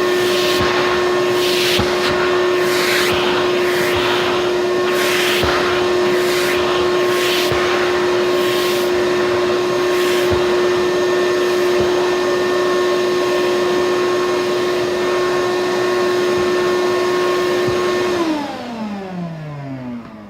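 ShopVac 5-gallon wet/dry vacuum running on a rug: a steady motor whine with a rushing air sound that swells again and again in the first half. About 18 s in it is switched off and the motor winds down, its pitch falling away.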